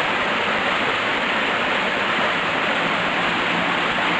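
Waterfall rushing steadily, running full after recent rain.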